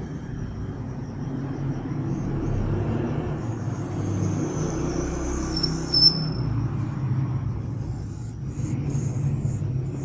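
Steady low rumble, with one short high squeak about six seconds in from a marker drawing on a whiteboard.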